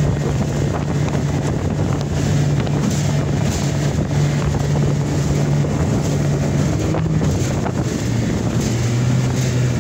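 1991 Johnson 20 hp two-stroke tiller outboard running steadily at full speed, with wind buffeting the microphone. The engine note drops a little about eight seconds in.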